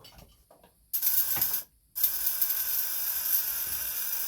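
Radiostat violet ray device switched on during its post-repair test: its high-frequency coil and interrupter run with a loud, hissing buzz that starts about a second in, cuts out briefly, then carries on steadily. A few small handling clicks come before it.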